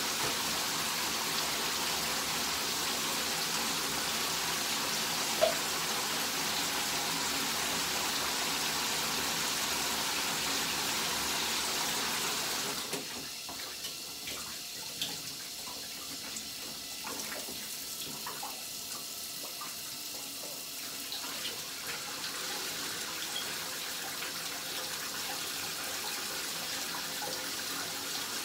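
Shower running: a steady hiss of water spraying from the shower head. About 13 seconds in the spray becomes quieter and duller, and there is one sharp tap about five seconds in.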